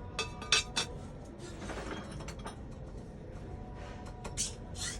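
Sharp metallic clinks and taps, about half a dozen spaced unevenly, from tools and parts being handled during diesel engine cylinder sleeve fitting, over background music.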